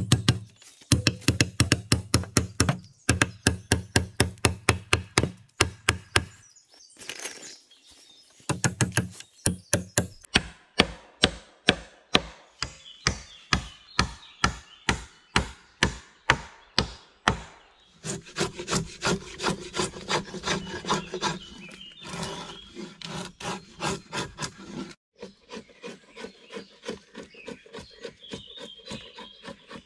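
Hand saw cutting wood: quick back-and-forth strokes, about three to four a second, in several bouts with short pauses. The strokes grow lighter and quieter near the end.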